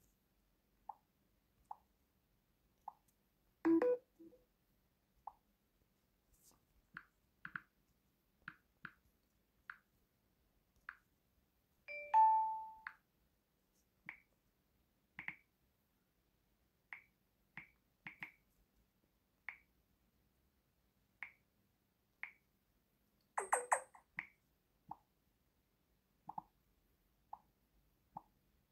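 Samsung Galaxy touch-interaction system sounds from the 'Calm' (Ruhig) sound theme: an irregular series of short, soft tap tones, some lower and some higher in pitch. Three louder, longer chimes come about four, twelve and twenty-three seconds in.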